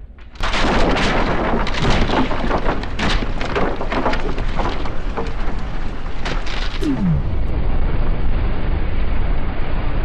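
A large explosion goes off suddenly about half a second in, followed by several seconds of crackling and debris impacts. Near the end it settles into a steady, duller rumble.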